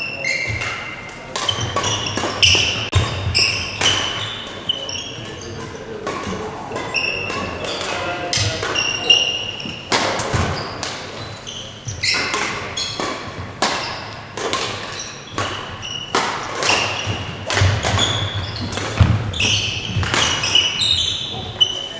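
Badminton doubles rally: rackets striking the shuttlecock in quick succession, with shoes squeaking and feet thudding on the court floor, echoing in a large sports hall.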